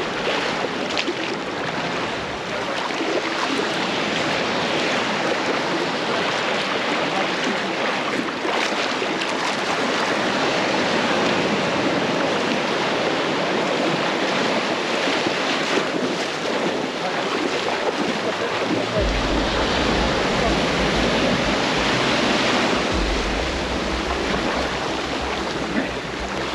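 Surf washing onto the beach in steady, swelling waves, with wind buffeting the microphone and adding a low rumble from about two-thirds of the way through.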